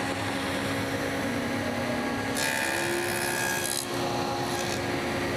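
Table saw running with a stacked dado blade, cutting a tenon on a wooden test piece. The cutting noise grows stronger from about two and a half to four seconds in.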